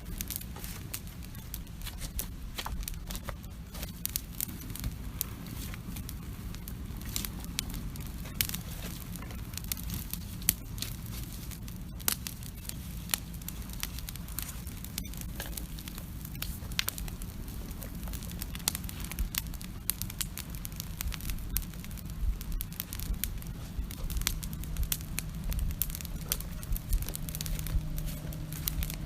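Outdoor wood campfire crackling and popping, with many sharp, irregular snaps throughout, over a low steady rumble.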